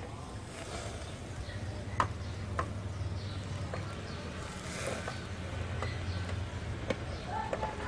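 Metal tongs clicking against a wire grill grate while chicken pieces are turned over a charcoal clay stove: a few sharp clicks, the loudest about two seconds in, over a steady low hum.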